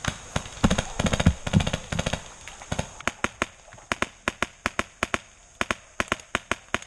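Paintball markers firing: a dense flurry of rapid pops for the first two seconds, then single shots about four a second.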